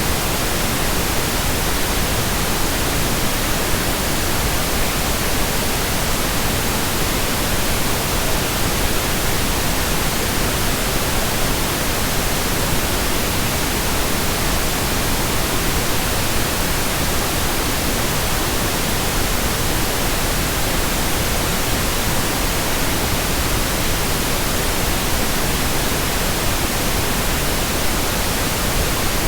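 Steady pink noise: an even, unchanging hiss spread across all pitches, with no other sound.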